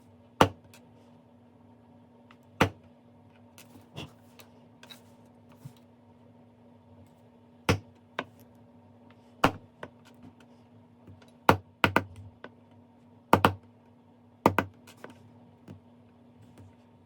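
Irregular sharp clicks and knocks, about a dozen, some in quick pairs, over a faint steady hum: small hard objects being handled and set down on a workbench.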